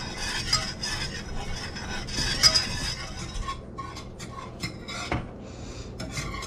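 Wire whisk stirring a thickening milk-and-cream sauce in a saucepan, its wires scraping and clinking against the pan. The strokes are brisk and continuous at first, then turn into separate, slower strokes about halfway through.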